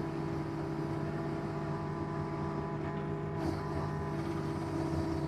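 Excavator engine running at a steady speed, a constant even drone, while the machine works dirt along the trail.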